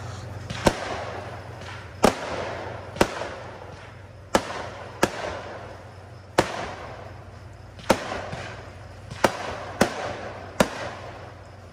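Aerial fireworks bursting in a series of about ten sharp bangs spaced a second or so apart, each trailing off in a fading echo.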